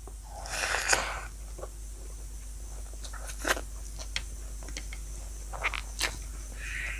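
Handling of food and dishes: a short rustling scrape about half a second in, then scattered small clicks and taps.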